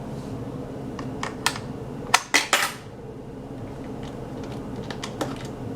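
Light plastic clicks and clacks from handling a toy candy vending machine bank, with a quick cluster of louder clacks a little over two seconds in and a single click near the end.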